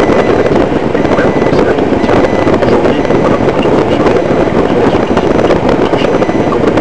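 Steady car-cabin noise while driving at low speed: engine and road noise picked up by a dashboard camera's built-in microphone inside the car.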